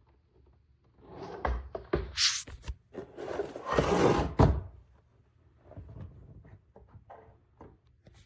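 Handling noises: rustling and scraping with sharp knocks and a few louder thumps, busiest from about one second in to the middle, then fainter ticks and rustles.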